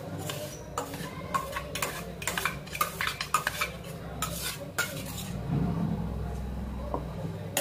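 A steel spoon scrapes and clinks against the inside of a stainless-steel mixer-grinder jar, scooping out thick ground coconut chutney. It makes a quick run of metallic scrapes and taps that thins out after about five seconds.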